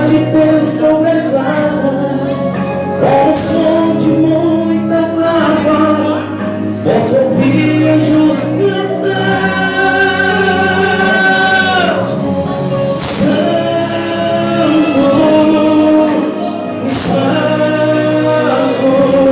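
Gospel song: voices singing long held notes over instrumental backing, with one note held for about three seconds near the middle.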